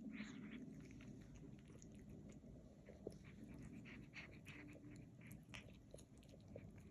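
Cat eating: faint chewing and smacking clicks mixed with soft 'nom nom' murmuring noises.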